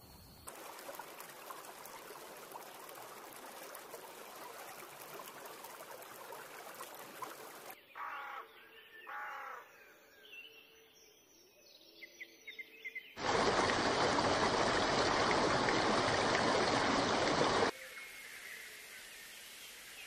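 A spliced sequence of outdoor nature sounds. First a steady hiss, then several short bird calls against quieter background, then a much louder rushing noise for about four seconds that cuts off abruptly, then a quieter hiss again.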